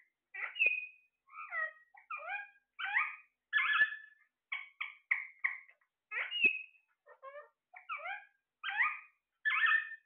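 Alexandrine parakeets calling: a run of short, rising and falling squawks, about two a second, some coming in quick pairs or triples.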